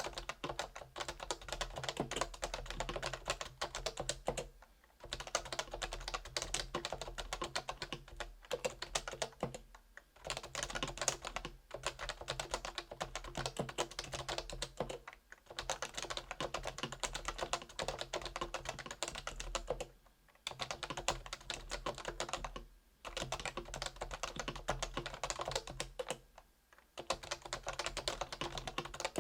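Topre Realforce R2 keyboard with stock 45 g Topre switches being typed on quickly and continuously. The keystrokes come in runs of a few seconds, each broken by a brief pause.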